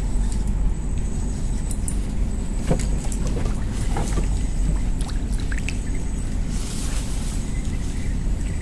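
Steady low rumble of a small engine running on the boat, with a few light knocks and clicks around three to four seconds in.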